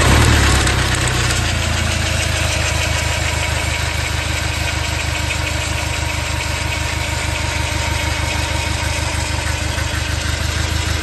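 Nissan YD25 four-cylinder diesel engine running steadily just after starting, with a fast, even ticking clatter over a low rumble. The owner ties this kind of rattle to a worn timing chain and its tensioners.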